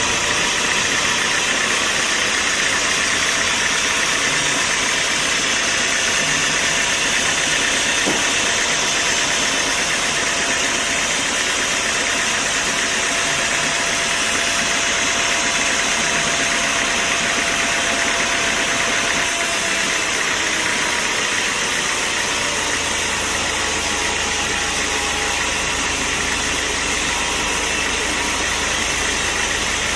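Sawmill machinery running steadily, a loud, even mechanical noise without pauses or distinct impacts.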